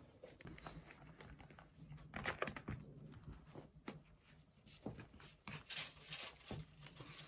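A knife cutting a block of cheese into cubes on a plastic tray: faint, scattered clicks and scrapes of the blade against the cheese and tray.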